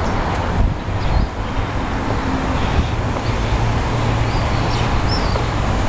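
Steady outdoor background rumble: wind and city noise with no distinct event.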